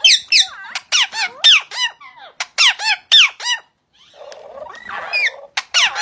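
Squeaky, high-pitched chatter from a male Eclectus parrot: quick chirps that each fall in pitch, coming in rapid bursts, with a rougher, raspier squawk about four seconds in.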